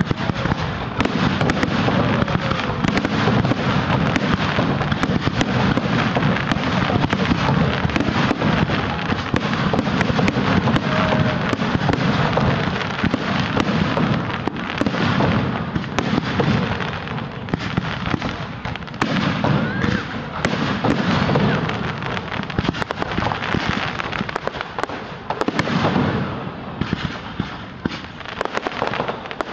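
Aerial fireworks display: shells launching and bursting in a dense, continuous barrage of bangs and crackles, thinning out near the end.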